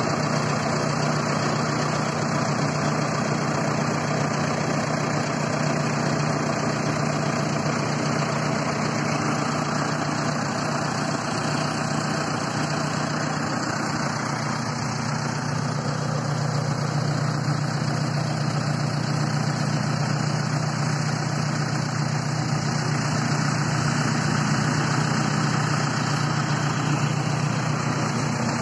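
JCB 3DX backhoe loader's diesel engine idling steadily, with an even low hum and no revving.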